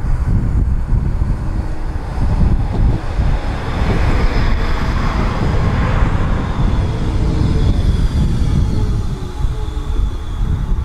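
Tram passing close on its rails: the rolling noise grows to a peak about five to six seconds in as it goes by, then fades, with a high motor whine that falls in pitch as it moves away.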